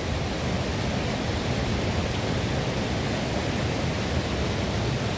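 Steady rushing of a waterfall and river, an even hiss of falling water.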